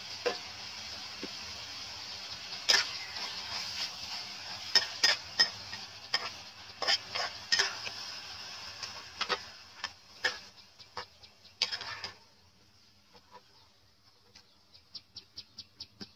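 Stir-fried beef and vegetables sizzling in a frying pan, with irregular sharp clicks and scrapes of a metal spatula against the pan as it stirs. The sizzle cuts off about twelve seconds in, and a run of quick, faint ticks follows near the end.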